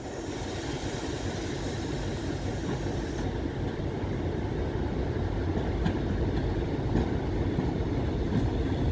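ET2M electric multiple unit pulling slowly into the platform, its rumble of wheels on rails growing gradually louder as it approaches.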